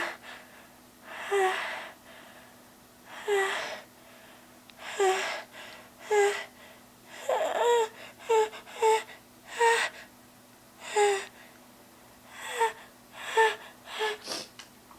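A woman's sharp gasping inhalations before a sneeze: about a dozen breaths, each ending in a short high voiced catch. They come every second or two, quicken in the middle and again near the end.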